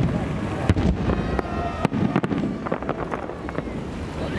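Distant festive fireworks going off, a series of sharp bangs of shells bursting. The loudest come a little under a second in and about two seconds in, with weaker pops between and after them.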